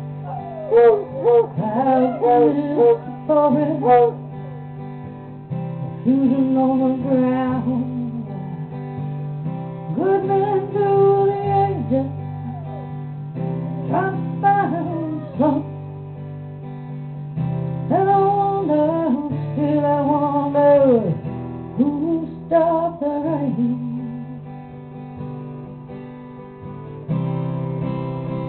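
Acoustic guitar strummed while hounds howl along in long, wavering notes that bend and slide, one falling away in a long downward glide. The howling stops near the end, leaving the guitar alone.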